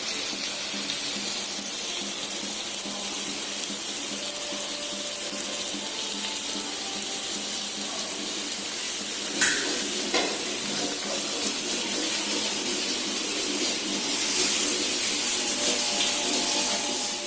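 Kera (tuna) fish slices sizzling steadily in a little oil in a pan on a low flame, with two sharp clicks about nine and ten seconds in.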